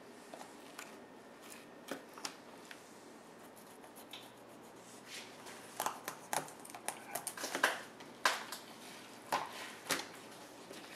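Knife cutting along a spring Chinook salmon's belly bones to free the top fillet: a run of short, faint clicks as the blade passes over the rib bones. They are sparse at first and come thick and fast from about halfway.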